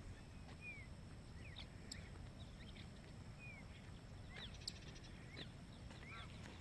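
Wild birds calling faintly: scattered short chirps and whistled notes, busier about four and a half seconds in, over a low background rumble.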